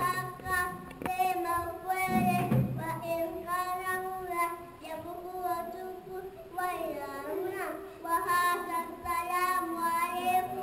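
A boy's voice chanting solo in a melodic, sung style, in long phrases whose held notes bend up and down, with short breaths between phrases.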